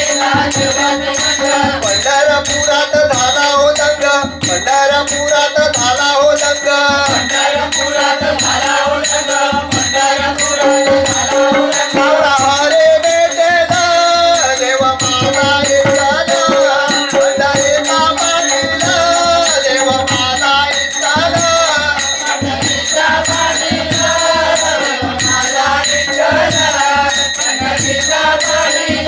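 A Marathi devotional bhajan to Vitthal sung by a group of men, accompanied by hand cymbals struck in a steady beat and a drum, over a held drone.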